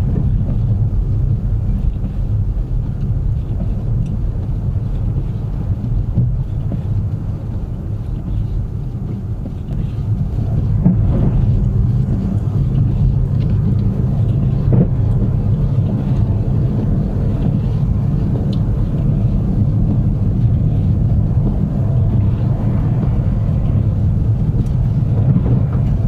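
Car driving on a snow-covered road, heard from inside the cabin: a steady low rumble of road and tyre noise that eases slightly and then picks up again about ten seconds in.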